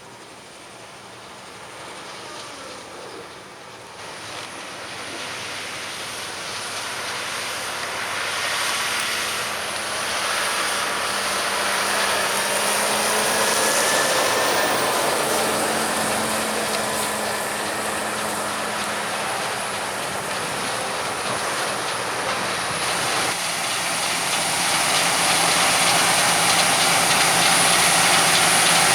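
Heavy farm harvest machinery drawing nearer, its engine and mechanical rattle growing steadily louder, with a further rise near the end.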